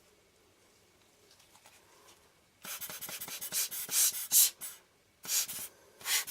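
A lens tissue rubbed over a glass lens element in quick, scratchy wiping strokes, starting about two and a half seconds in. The strokes break off briefly near the end, then start again.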